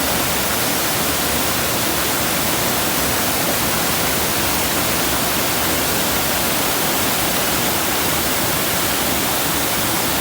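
Large waterfall in full flow: a steady, even rush of falling water.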